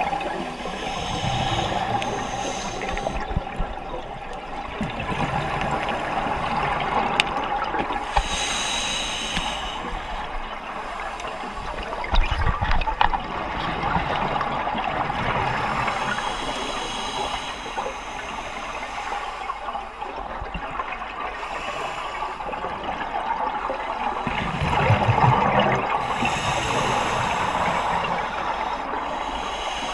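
Scuba regulator breathing underwater: air hissing and bubbles gurgling in repeated bursts every several seconds.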